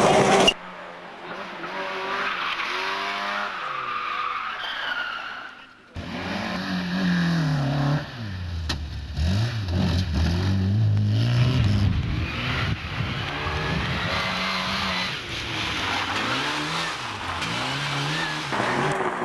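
Rally car engines revving hard, the pitch climbing and dropping again and again through gear changes, with tyres skidding. The sound cuts abruptly about half a second in and again about six seconds in, as one car gives way to the next.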